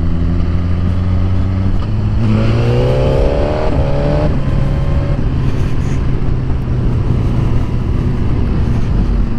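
Suzuki GSX-R1000R's inline-four engine heard from inside the rider's helmet, with wind noise. It cruises steadily, then from about two seconds in accelerates with a rising note, breaks briefly for an upshift, rises again, and settles back to a steady cruise.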